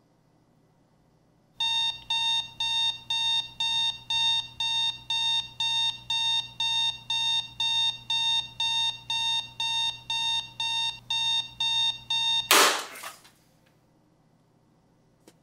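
Alarm clock beeping in a fast, even pattern, about two and a half beeps a second, starting about a second and a half in. After some eleven seconds it is cut off by a loud crash as a bat smashes the clock.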